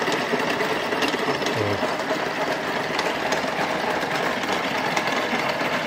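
Vertical milling machine running, its face-mill cutter taking a skim pass across the deck of a ZAZ Tavria aluminium cylinder head that was warped by overheating. The sound is a steady machine noise.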